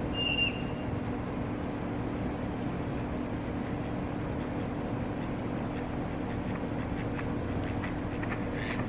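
Steady low outdoor background hum, with one short high bird chirp about half a second in and a few faint short calls near the end.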